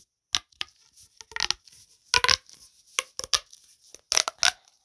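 Plastic pop tube fidget toy being stretched and squashed in the hands, giving an irregular string of sharp pops and clicks, a few with a short ring.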